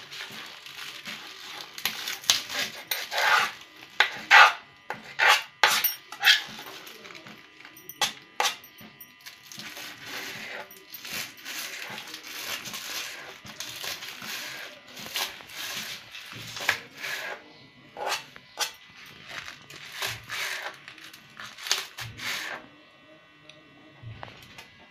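Knife chopping spring onions on a hard chopping board: irregular sharp taps of the blade striking the board, loudest in the first few seconds and stopping near the end.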